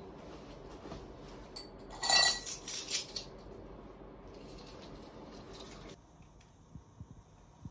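Small metal objects jingling and clinking, with a loud jangle about two seconds in and a few more clinks over the next second. Rustling of a padded coat being pulled on sits under it.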